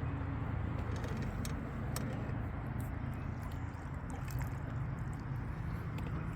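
Steady low rumble and wash of water around a small fishing boat, with a few faint clicks.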